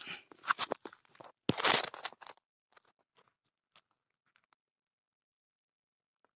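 Close crunching and rustling handling noise in a few bursts over the first two and a half seconds as a caught grey francolin is gripped in the hand, then only faint clicks and near silence.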